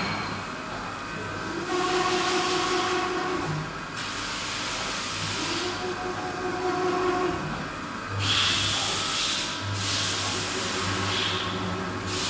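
Workshop noise: several bursts of hissing, each a second or two long, over a steady hum with a humming tone that comes and goes.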